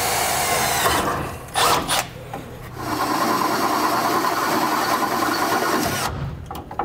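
Cordless drill running under load, boring holes out to half an inch. It runs in two steady stretches, the first stopping about a second and a half in and the second from about three seconds to six.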